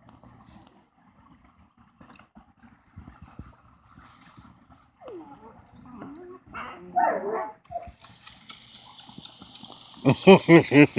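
Dog whining and vocalizing: a falling whine about halfway through, more short calls after it, and louder repeated calls near the end.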